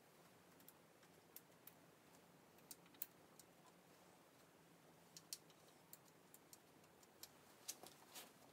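Near silence broken by faint, scattered small clicks and taps as a new oil pump and its gasket are handled and lined up by hand on the bottom of a cast-iron engine block.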